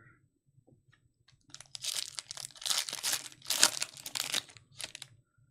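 A 2024 Panini Encore Football hobby pack's wrapper being torn open and crinkled, in a run of crackling tears and rustles that starts about a second and a half in and lasts about three seconds.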